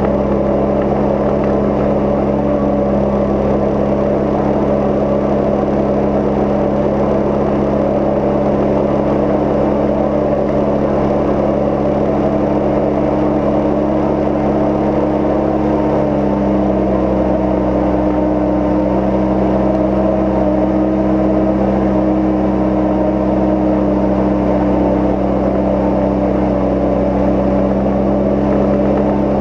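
Cozy Mk IV light aircraft's engine and pusher propeller running steadily in cruise flight, a constant drone whose pitch shifts slightly about halfway through.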